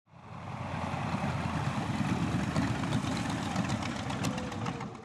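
World War II fighter plane's radial piston engine running as the aircraft taxis on a grass airfield, a deep steady rumble. It fades in over the first second and cuts off suddenly at the end.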